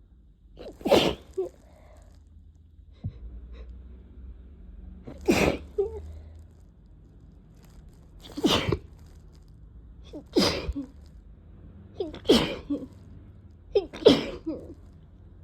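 Six loud, wet sneezes from a person with a head cold, set off by a persistent nasal tickle. They come a few seconds apart at first, then faster toward the end.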